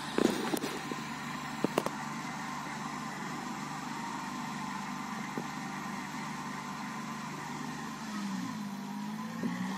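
Tractor engine running steadily while it works a Shaktiman boom sprayer, a constant hum, with a brief dip and recovery in its pitch near the end. A few sharp knocks in the first two seconds.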